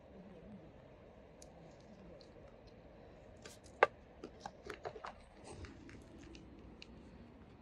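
Knife knocking on a wooden cutting board while cutting shallots: a few faint ticks, then a cluster of sharp knocks about four seconds in, the first the loudest.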